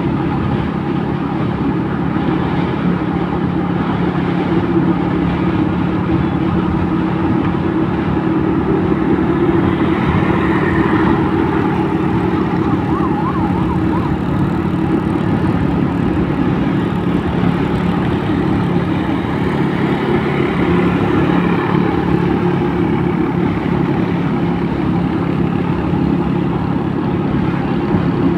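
Vehicle engine running steadily at cruising speed on the highway, with continuous road and wind noise.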